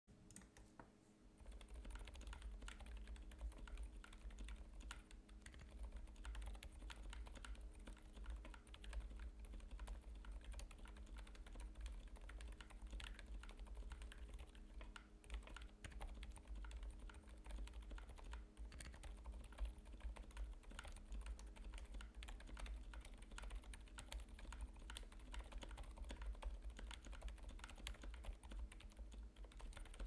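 Continuous typing on a Glorious GMMK Pro mechanical keyboard, built with lubed Silent Alpaca silent linear switches, GMK Cafe ABS keycaps, a polycarbonate plate and gasket mount; dense, irregular keystrokes begin about a second and a half in. A steady low hum sits underneath.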